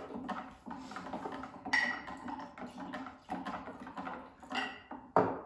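Red wine poured from a glass carafe into small glasses, with light clinks of glass and a spoon against a glass jar. The clinks ring briefly, three times.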